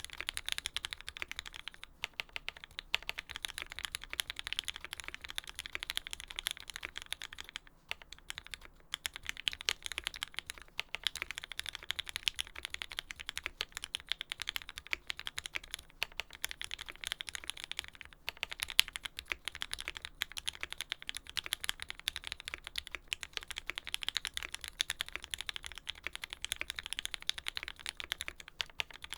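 Continuous fast typing on a custom mechanical keyboard with lubed linear Tealios V2 switches fitted with Cherry top housings, an aluminium plate and GMK keycaps: a dense stream of keystroke clacks, with a brief pause a little after a quarter of the way in.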